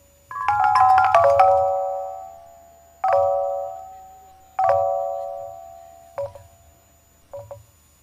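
Thai gong circle (khong wong) struck with mallets: a quick run of notes about half a second in, then single struck chords at about three and four and a half seconds, each left to ring and fade, and two softer, shorter strokes near the end.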